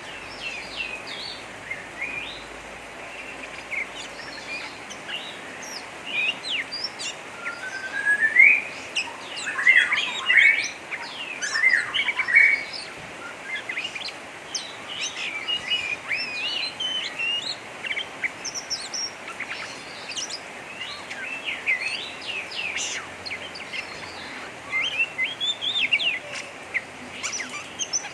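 Oriental magpie-robin (kacer) giving rough, rapid chattering calls (ngeriwik): a dense run of short, sharp notes with a few rising whistles, loudest in the middle stretch, over a steady hiss.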